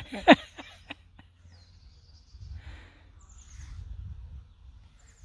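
A brief loud sound falling in pitch right at the start, then birds chirping in a garden, short high downward-sweeping calls, over a low outdoor rumble.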